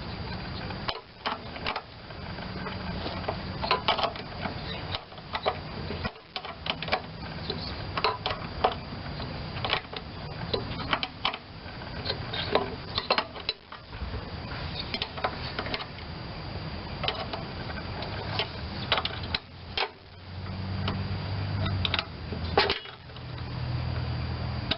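Hand ratchet clicking in short irregular runs while tightening the mounting bolts of a replacement carburetor.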